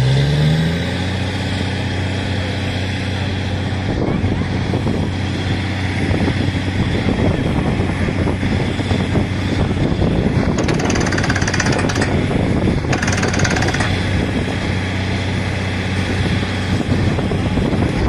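Truck-mounted water-well drilling rig running: its engine revs up in the first second, then holds steady under a dense, rapid hammering from the drill. Two spells of hiss come through about ten and thirteen seconds in.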